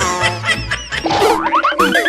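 Playful background music with cartoon sound effects. A run of quick rising pitch slides, like comic boings, starts about halfway through.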